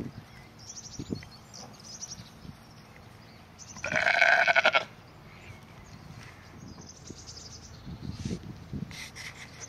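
A sheep bleats once about four seconds in: a loud, wavering call about a second long. Soft low rustles and thumps come and go around it.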